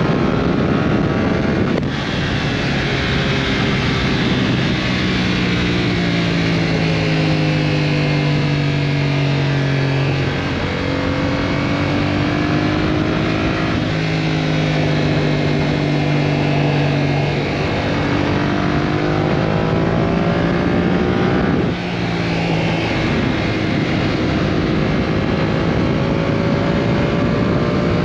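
A Yamaha R7's 689 cc parallel-twin engine running at road speed. Its note slowly falls and then climbs again with the throttle, and the sound dips briefly a few times, near the start, partway through and near the end.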